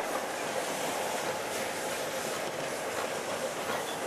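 Steady running noise of an EMD MP15DC diesel switcher locomotive, heard aboard: an even drone and hiss with wheel-on-rail noise.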